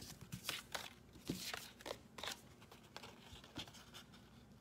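Small craft scissors snipping cardstock: a string of short, crisp, irregular snips as tabs are trimmed off die-cut paper pieces, with light paper rustling between them.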